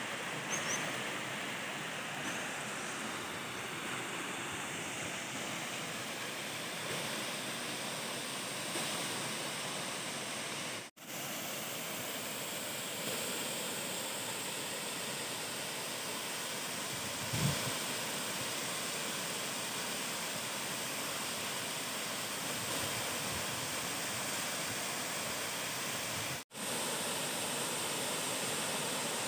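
Steady rush of water from a waterfall about 30 m high and the shallow rocky stream below it: an even hiss with no pitch. The sound cuts out abruptly twice, and there is one short low bump about halfway through.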